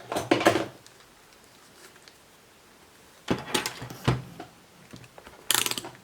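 Clicks and clatter of small hard parts and tools being handled on a workbench, in three short bursts with pauses between.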